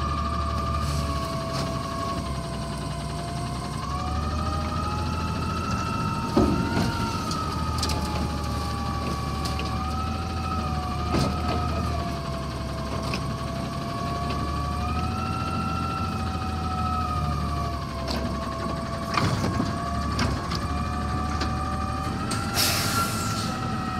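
McNeilus Autoreach automated side-loader arm on a natural-gas Autocar Xpeditor garbage truck lifting a cart, dumping it into the hopper and lowering it again: a hydraulic whine that slowly rises and falls in pitch as the arm works, over the truck's engine running. Several sharp knocks as the cart bangs against the hopper.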